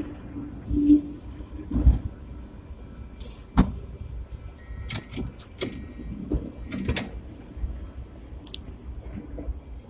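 Hong Kong double-decker tram No. 120 running, heard from the driver's end of the lower deck: a low rumble broken by scattered sharp knocks and rattles from the car.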